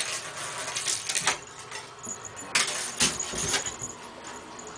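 A cat's paws and claws scrabbling and skidding on the floor of an empty bathtub in several short scratchy bursts. The bursts come in a cluster at the start and again about two and a half to three and a half seconds in.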